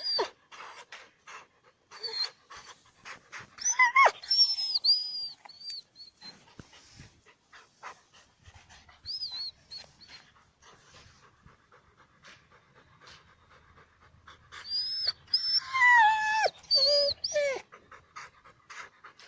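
A dog panting rapidly, with high, wavering whines about four seconds in and again from about fifteen to seventeen seconds in.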